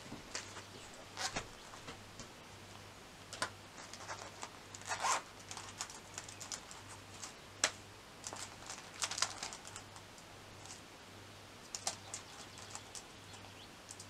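Handling of stationery on a desk: a notebook and a zippered pencil case are set down and the case is unzipped to take out a pen, giving scattered taps, clicks and rustles with a zip pulled.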